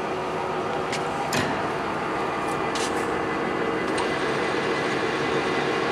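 Poreba TR135 heavy engine lathe running under power, its headstock gearing and spindle giving a steady mechanical hum with a few constant tones, held below top speed. A few sharp clicks sound over it about one, one and a half, three and four seconds in.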